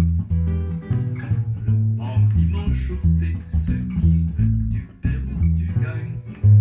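Acoustic guitar and upright double bass playing together. The bass is plucked, with a new low note about every half second under the guitar's picked notes.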